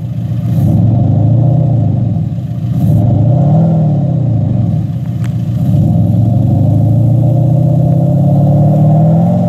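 VW Golf 7 GTD's 2.0 TDI diesel revved through its sound actuator set about 25% louder than stock, giving a deep, V8-like sound. There are two short blips, then a longer, slower climb in revs that drops away near the end.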